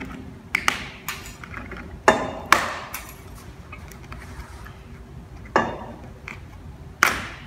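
A hand cutter snipping off the ends of cable ties wrapped around a heat-shield-covered muffler: about six sharp snaps, loosely in pairs, each with a brief metallic ring.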